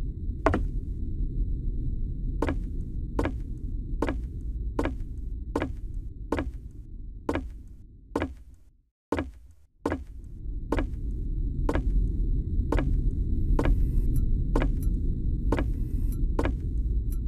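Evenly spaced sharp ticks, a little more than one a second, over a low steady droning rumble. Both cut out briefly about nine seconds in, then resume, with faint high thin tones joining near the end.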